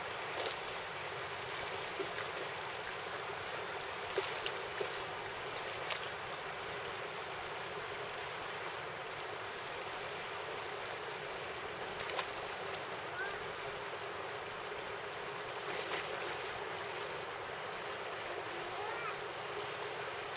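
Steady rush of river water, broken a few times by brief sharp sounds.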